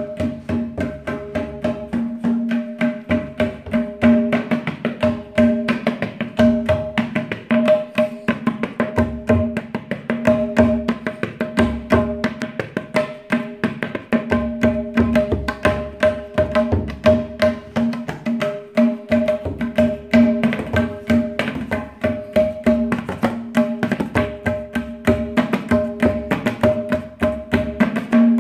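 Tabla played solo: rapid strokes on the dayan, ringing at its tuned pitch, under a left hand working deep bass strokes on the bayan that drop out for a second or so at a few points.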